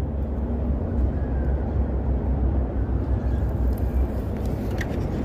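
Steady low rumble of wind buffeting the phone's microphone.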